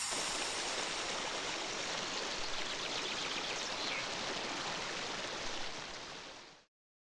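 Steady rush of water, fading out near the end and then stopping.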